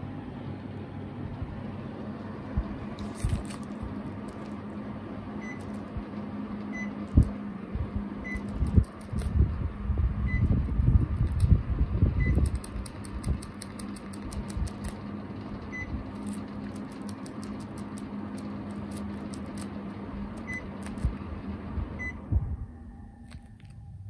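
Panasonic Envio split air conditioner indoor unit running with a steady fan hum, giving short single beeps about nine times as remote buttons are pressed. Just after the last beep, about two seconds before the end, the airflow noise drops away sharply.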